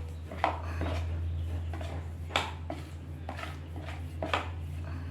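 Kitchen utensils knocking and clinking against a bowl while anchovies are pressed into flour batter for fritters: three sharper clinks about two seconds apart among softer knocks, over a steady low hum.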